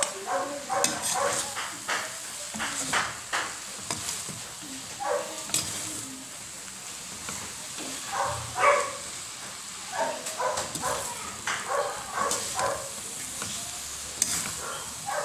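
Slotted metal spatula scraping and tapping against a wok as a minced fish-and-vegetable filling is stir-fried, over a light sizzle. Brief pitched sounds come and go in the background, the loudest a little past the middle.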